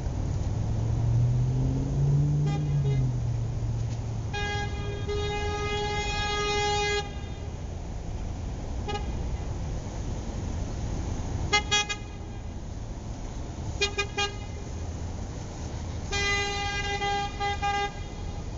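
Car horn honking in a series: a long blast of about two and a half seconds, a short beep, two quick runs of three toots, and another long blast near the end. A steady low rumble runs underneath, with a low drone that rises and falls in the first few seconds.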